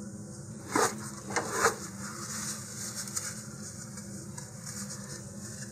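Copier paper being handled on a cutting mat: three short rustles in the first two seconds, then faint rubbing and rustling.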